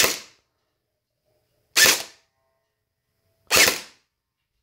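Electric gel blaster with a standard Gen 8 gearbox, UMP-style, firing three single shots about two seconds apart, each a brief cycle of the gearbox.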